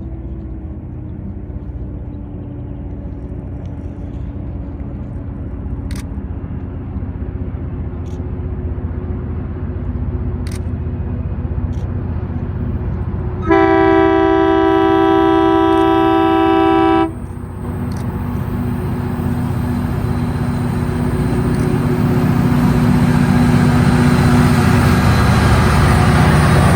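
A train approaching with a low engine rumble that slowly grows louder. About halfway through it sounds one long horn blast of several steady tones lasting about three and a half seconds.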